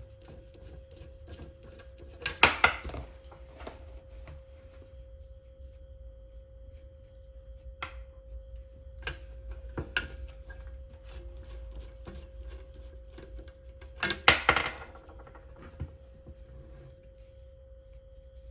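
Hard clicks and clatters of parts being handled, with two louder bursts of clattering, one about two seconds in and one near the end, over a steady faint high hum.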